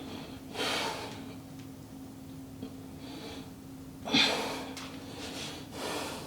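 A man breathing hard through a set of bodyweight calf raises: sharp exhales about a second in, around four seconds in (the loudest) and near the end, over a steady low hum.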